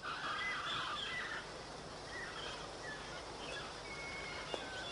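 Tropical rainforest ambience: short scattered bird calls over a steady background hiss, with a louder call in the first second.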